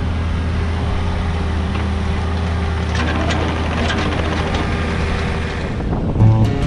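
Engine of a loader-type machine running steadily, with a sudden low thump and a change in engine tone about six seconds in.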